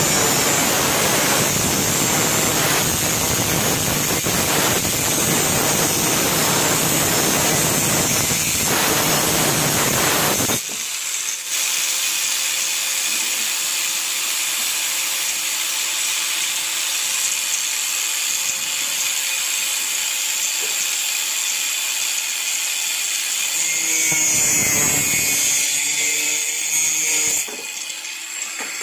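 Buildskill BG720R 830-watt 100 mm angle grinder with a cut-off disc, first grinding through an iron rod with a loud, dense grinding noise. About ten seconds in the sound cuts abruptly to the grinder spinning with a steady high whine as the disc cuts through PVC pipe, the cutting noise swelling again near the end.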